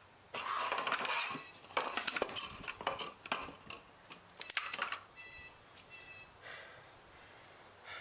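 Hard objects clattering and clinking as they are handled, in irregular bursts through the first five seconds, then quieter.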